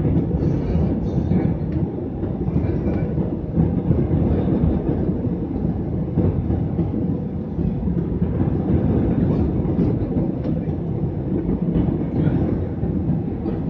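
Steady low roar inside a jet airliner's cabin on approach to landing: engine and airflow noise heard from a window seat beside the engine.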